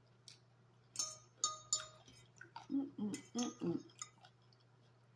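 A fork or other metal utensil clinks against a dish four times in the first two seconds, some of the strikes ringing briefly. It is followed by a few short, low vocal sounds from the eater about three seconds in.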